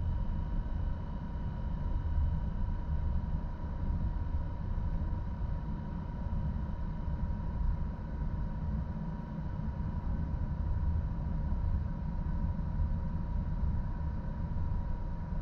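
Inside a moving passenger train car: the steady low rumble of the train rolling over the track, with a faint steady whine above it.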